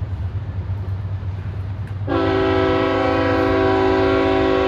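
A diesel locomotive's air horn sounds one long, loud chord of several notes, starting about two seconds in, over a steady low rumble from the approaching freight train.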